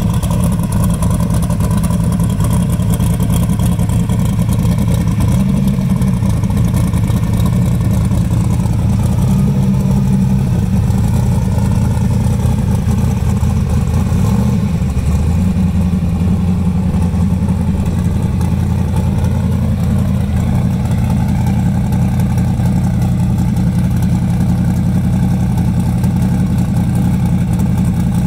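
Twin-turbocharged 1963 Chevy Nova SS drag car's engine running at a loud, steady idle as the car rolls slowly, its note shifting slightly a few times.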